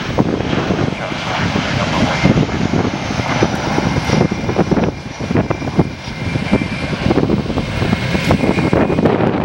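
Boeing 737 jet airliner landing close by, its engines giving a steady whine over heavy wind buffeting on the microphone.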